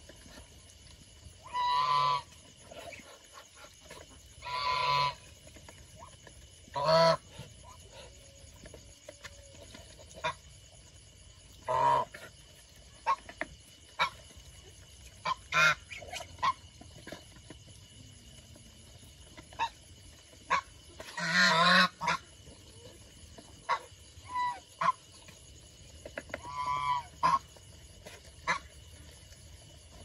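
Domestic geese honking, about seven calls spread through the flock, some short and one longer. Many short sharp clicks in between are bills pecking at feed in a tub.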